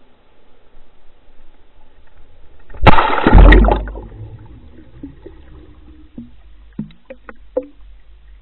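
A Water Wolf HD underwater camera on a carp line plunges into the water with a loud splash and rush about three seconds in, then sinks through trailing bubbles. A few short pops follow near the end.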